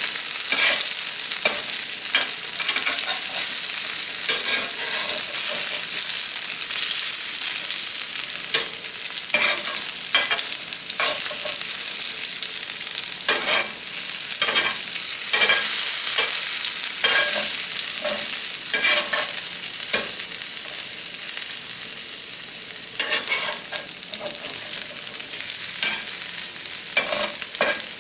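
Food frying in oil with a steady sizzle, while a metal spatula scrapes and knocks on the pan in frequent irregular strokes as diced potatoes are turned.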